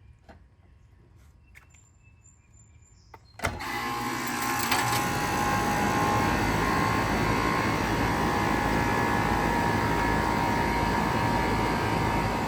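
Two Goodman CK air conditioner condensing units starting up together: a sharp click about three and a half seconds in as they switch on, then compressor hum and fan noise that build over the next two seconds into a steady, loud run.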